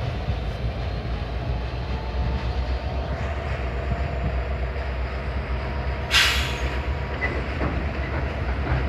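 A slow train of passenger-style cars rolling past with a steady low rumble of wheels on rail, and a brief loud high squeal about six seconds in.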